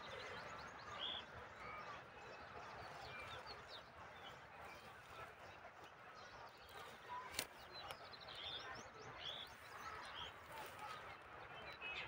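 Faint outdoor ambience of small birds chirping, short calls and quick trills scattered throughout, with a single sharp click a little past halfway.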